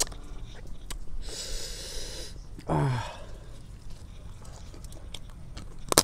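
A man's sharp hissing breath, about a second long, then a short grunt falling in pitch, with small chewing and lip clicks around them. It is a diner's reaction to the chili heat of a spicy field-crab dish.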